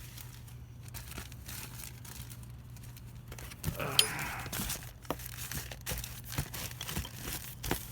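Packaging material being crinkled and rustled, with scattered light clicks and knocks as parts are handled; a louder rustle with one sharp click about four seconds in.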